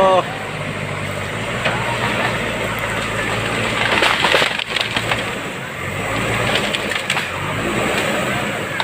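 JCB backhoe loader's diesel engine running steadily, with a burst of rattling noise about four seconds in.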